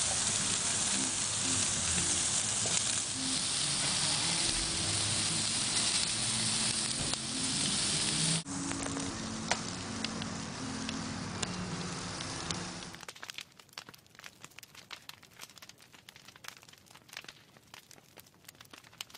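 Steaks and corn on the cob sizzling on the grate of a Kamado Joe ceramic charcoal cooker, a loud steady sizzle broken briefly about eight seconds in. About thirteen seconds in it drops to faint crackling and popping.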